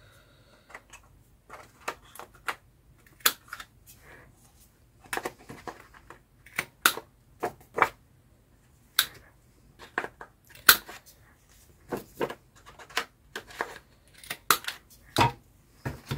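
Paper and card scraps being handled at a craft table: irregular crisp clicks, taps and rustles, a dozen or more through the stretch.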